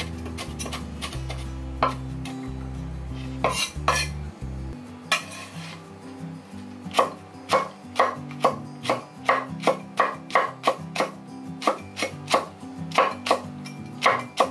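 Cleaver blade chopping chili peppers against a wooden cutting board. A few separate knife strikes come in the first four seconds, then a steady run of about two to three strikes a second from about seven seconds in.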